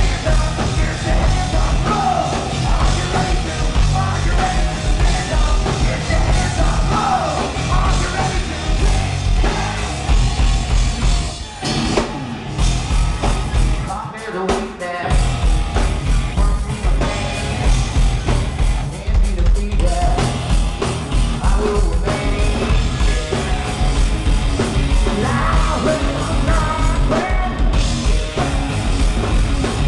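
Live hard rock band playing loud: drums, bass and guitars with the singer yelling and singing over them. Near the middle the bass and drums stop for a moment, then the full band comes back in.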